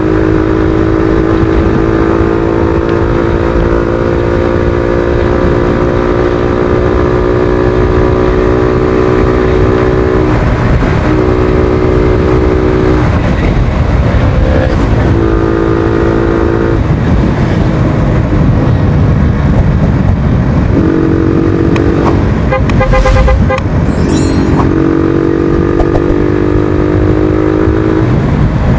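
Suzuki Thunder 125's single-cylinder four-stroke engine running under way, its pitch climbing slowly and breaking off several times as it changes gear, under heavy wind rumble on the microphone. A vehicle horn toots briefly about two-thirds of the way through.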